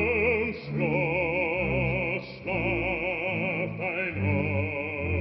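An opera singer singing long held notes with a wide vibrato, pausing briefly twice, over the orchestra.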